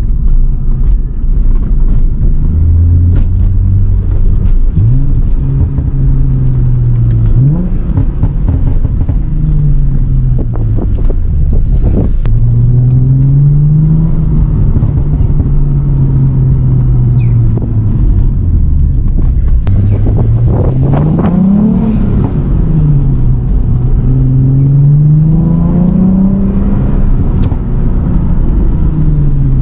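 Lexus IS350's 2GR-FSE 3.5-litre V6 through an Invidia midpipe and Manzo axle-back exhaust, its engine pitch climbing and falling again and again as it accelerates and comes off the throttle. Sharp exhaust pops and crackles come in clusters on deceleration, the product of a custom tune.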